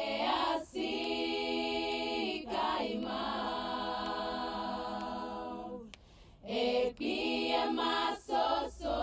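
Unaccompanied singing in long held notes. About six seconds in it breaks off briefly, then goes on in shorter phrases.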